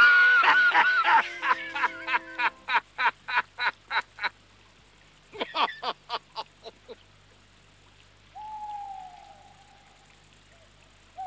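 A man's loud, hearty laughter, breaking into a fading run of ha-ha bursts over about four seconds, with a second short burst of laughter around the middle. Later an owl hoots once, a call that falls and then holds level for about a second.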